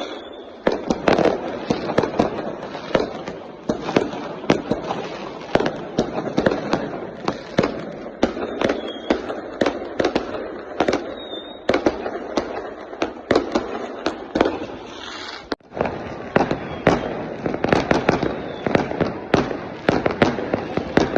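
Fireworks display: a rapid, continuous barrage of bursting shells, many sharp bangs a second over a steady crackling rumble, with a brief gap about fifteen seconds in.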